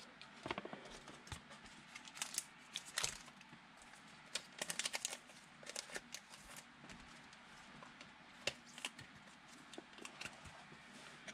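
Trading cards and card packs being handled on a table: faint, irregular light clicks and short rustles of card stock, with a denser cluster about halfway through.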